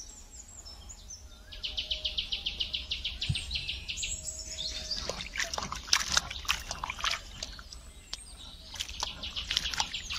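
Hands swishing diced potatoes around in a steel bowl of water, splashing irregularly for a few seconds in the middle. Before and after it, a bird gives a rapid high chirping trill.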